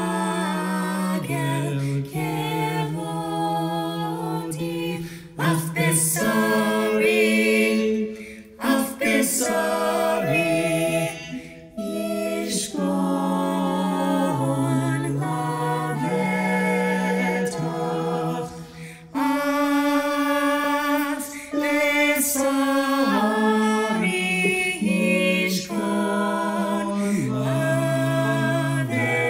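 A small group of men and women singing together unaccompanied, a cappella, in slow, held notes with brief breaths between phrases.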